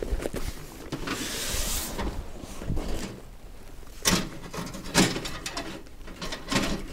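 Camp gear being handled during setup: a sliding, rustling noise in the first couple of seconds, then three separate knocks.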